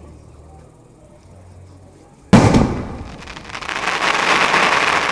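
Firework shell bursting with one sudden loud bang a little over two seconds in, followed by a dense crackling that swells and carries on.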